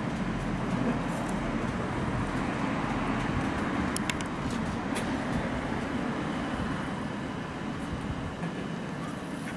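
Hino Blue Ribbon city bus's diesel engine running at idle, a steady low hum, with two faint clicks about four and five seconds in.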